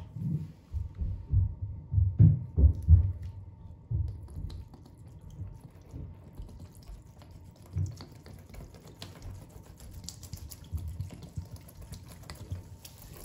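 Low thumps of the bottle being handled for the first few seconds, then pine cleaner poured from a bottle onto a dry bath sponge, a faint trickle with small drips as it soaks in.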